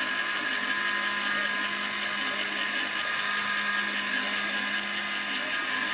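Spindle motor of a CNC-converted Proxxon MF70 mini mill running steadily with a high whine as it isolation-mills a copper circuit board, with a lower tone that wavers up and down beneath it.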